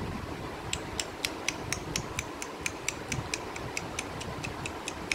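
A steady, rapid series of sharp clicks, about four a second, starting about a second in.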